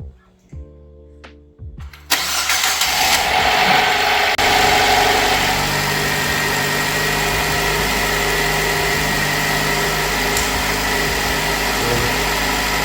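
Nissan Qashqai's freshly installed replacement engine cranking briefly on the starter, catching about two seconds in and running high for a couple of seconds, then settling into a steady idle: a clean first start after the engine swap.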